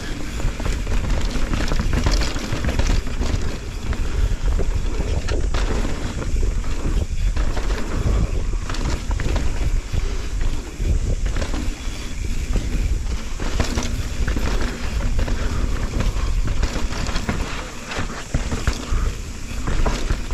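Mountain bike riding down a dirt trail: wind buffeting the action camera's microphone with a steady low rumble, and the bike clattering and knocking over bumps.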